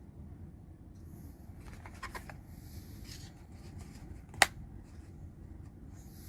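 A few faint clicks, then one sharp loud click about four and a half seconds in, over a steady low hum.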